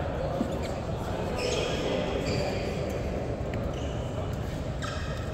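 Badminton play in a large sports hall: a few sharp racket hits on a shuttlecock and short shoe squeaks on the court floor, over the steady din of the hall.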